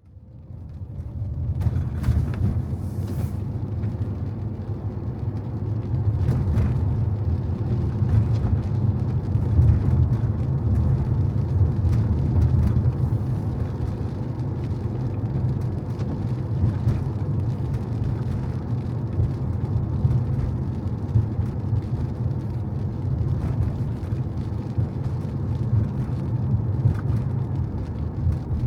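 A car driving on rain-wet city streets: a steady low rumble of engine and tyre road noise, fading in over the first second or so, with occasional faint ticks over it.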